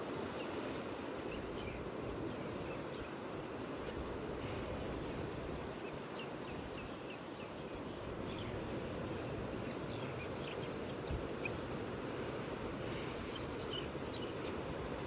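Ocean surf washing steadily, with faint short high chirps scattered through it.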